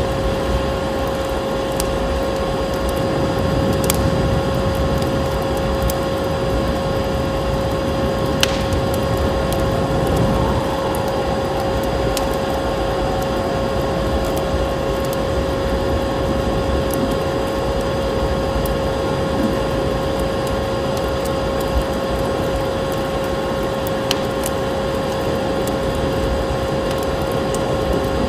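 Steady motor hum of a vacuum cleaner over a rushing noise, with a wood fire crackling and giving a few sharp pops.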